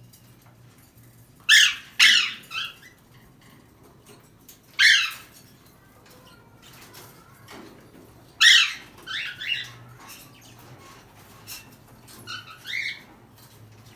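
Pet parrot giving loud, harsh squawks in short bursts: a quick run of three, a single call about five seconds in, a cluster of several around eight to nine seconds, and a few softer calls near the end.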